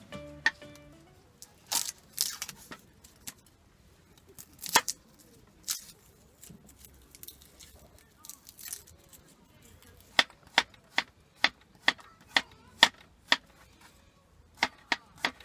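Scattered knocks and rustling, then steady chopping from about two-thirds of the way in, roughly two sharp strokes a second, with a few more strokes near the end.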